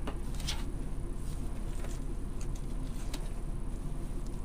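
Hands working a deco mesh wreath, its ribbon bow and pipe cleaners: a few scattered faint rustles and light clicks over a steady low hum.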